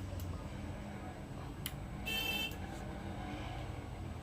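A short electronic beep, about half a second long, a little over two seconds in, with a few faint clicks before it, over a low steady hum.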